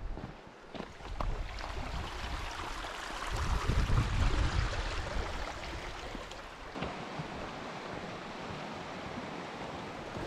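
Mountain creek running over rocks, a steady rushing hiss, with wind gusting on the microphone for a couple of seconds near the middle and a few footsteps on the rocky trail.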